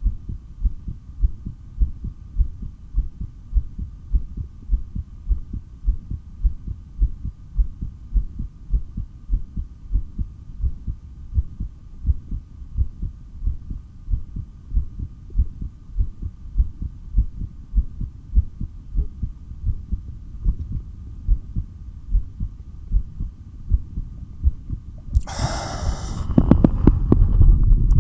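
Heartbeat heard through a stethoscope, a steady pounding rhythm of low thumps with a faint constant hum behind it, during a breath hold. About 25 seconds in, a loud rush of air breaks in as a breath is taken.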